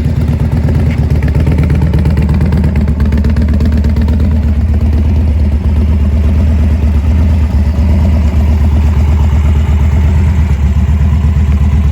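2012 Harley-Davidson Dyna Street Bob's Twin Cam 96 V-twin engine running steadily, with a loud, even, fast exhaust pulse and no large changes in speed.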